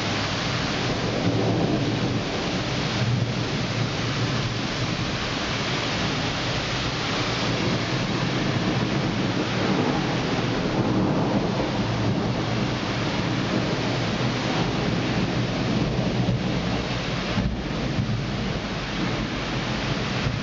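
Steady rain during a thunderstorm, with low thunder rumbling that swells and fades underneath.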